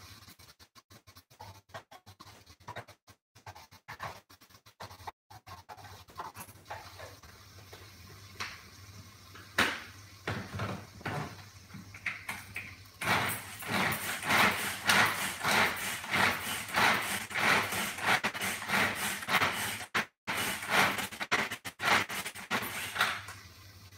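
Onion, ginger and garlic being grated by hand on a grater: quieter handling sounds, then rapid rhythmic scraping strokes, about three a second, starting about halfway in and stopping just before the end.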